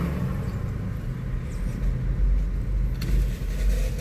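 Steady low rumble of a car being driven along a road, heard from inside the cabin.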